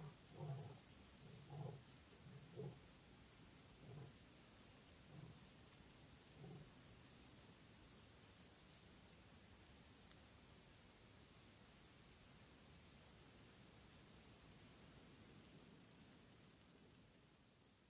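Faint insects chirping in the grass: a high chirp repeating evenly about two times a second over a steady high buzz. A few soft low knocks in the first several seconds.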